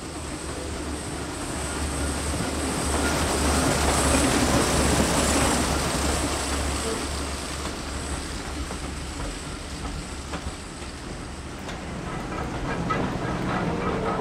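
A short heritage train running past on the line, rising to its loudest about four to five seconds in and then fading, and growing louder again near the end.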